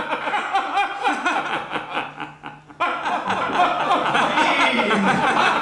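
A man laughing hard in rapid, pulsing bursts, dipping briefly about two and a half seconds in, then picking up again louder.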